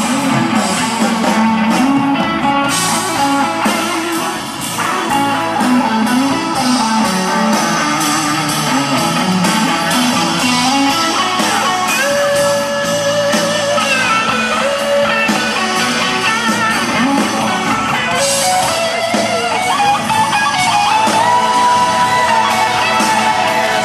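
Live amplified blues-rock band playing an instrumental passage, an electric guitar lead bending and holding notes over the band.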